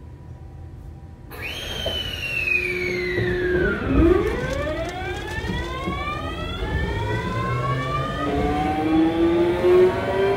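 Kintetsu 7000 series train's Mitsubishi GTO-VVVF inverter and traction motors as the train pulls away. After a quiet standing moment, a whine starts about a second in: one tone slides down while others climb in pitch, rising steadily as the train gathers speed.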